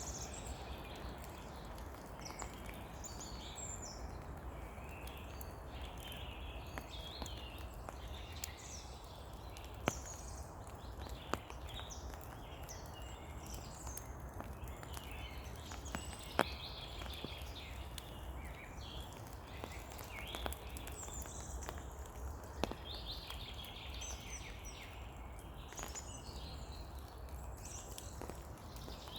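Steady rain pattering, with now and then a sharper drip hitting close by. Songbirds keep up short chirping phrases over it.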